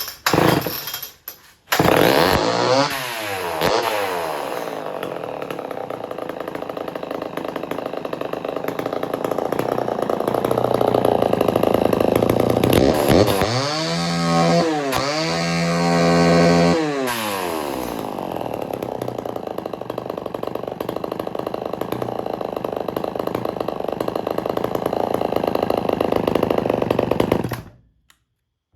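Homelite Super XL two-stroke chainsaw started without choke, catching about two seconds in and running. It revs up and down twice in the middle, idles steadily, then is shut off and stops abruptly near the end.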